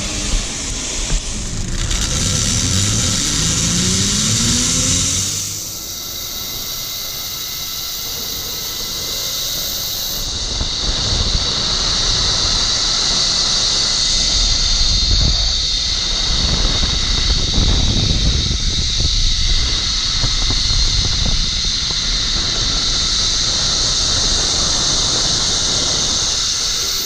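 Zip line trolley running along its steel cable with a steady, loud high-pitched whir-squeal over rushing noise.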